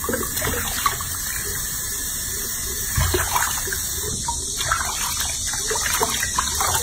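A tap running into a washbasin full of water, with hands splashing and scooping water over a baby monkey as it is bathed.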